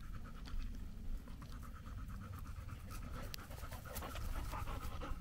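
A dog panting as it runs back carrying a training dummy in its mouth, louder near the end as it comes close.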